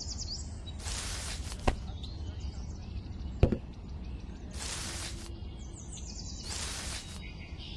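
Hand-picking chili peppers from small plants, with short rustles of leaves and stems, and a light knock about three and a half seconds in as a chili is dropped into a plastic toy trailer bed.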